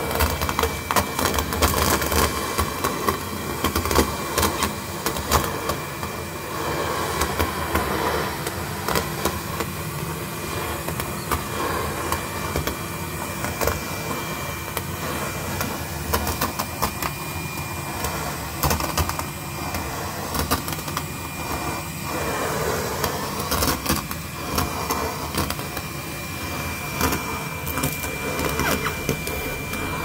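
Henry cordless vacuum cleaner running steadily with a faint high whine, its crevice tool sucking up foil confetti that clatters and ticks up the tube in irregular flurries.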